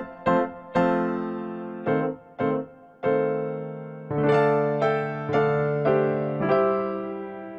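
Background music played on a piano-like keyboard: notes struck one after another and left to die away, turning to fuller chords about halfway through.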